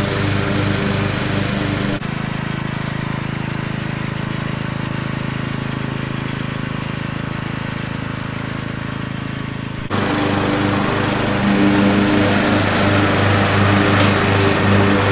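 Riding lawn mower's small engine running steadily while mowing. The sound changes abruptly about 2 seconds in and again about 10 seconds in, and is louder and more pulsing after the second change.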